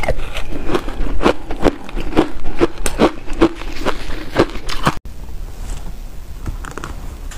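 Close-miked crunching of ice chunks being bitten and chewed, sharp crunches about three a second. They stop abruptly about five seconds in, leaving only a few faint clicks.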